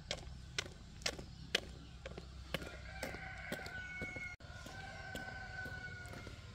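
Footsteps on a concrete road, about two a second, then a rooster crowing from about three seconds in, one long call with a brief break partway through.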